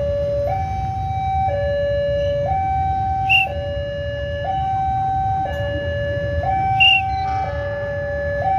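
Railway level-crossing warning alarm sounding a two-tone signal, switching between a higher and a lower note about once a second, the sign that a train is approaching and the barriers are down. Beneath it is a low traffic rumble, and two short high chirps come about three and a half and seven seconds in.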